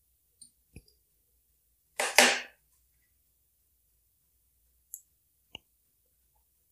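Faint small clicks of bare wire ends being pressed against the diode and capacitor terminals of a DIY transformer power supply while a 12 V bulb is hooked up. A brief noisy rush about two seconds in is the loudest sound.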